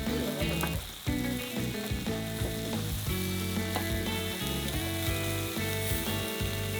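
Food sizzling on a grill, with background music of sustained notes that change every half second or so.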